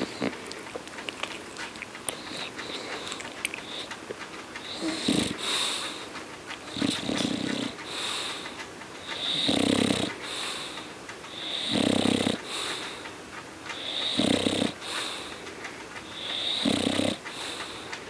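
English bulldog snoring in its sleep: a low snore about every two and a half seconds, starting about five seconds in, alternating with a high, whistling breath between the snores.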